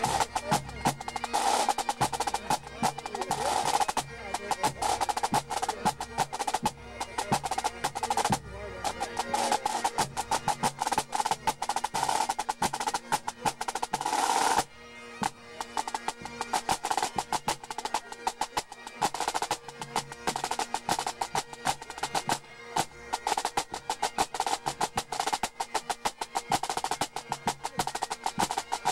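Pipe band playing: the snare drums' fast, crisp rolls and rudiments lead, over the steady held tones of the bagpipes. The level drops suddenly about halfway through, then the playing carries on.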